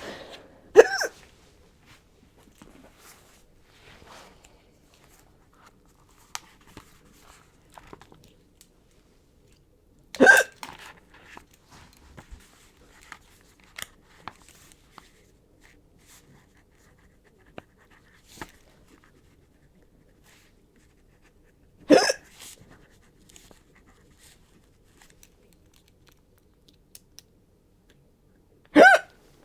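A young woman hiccuping four times, each a short, sharp voiced 'hic', about ten seconds apart. Quiet small clicks and rustles sound between them.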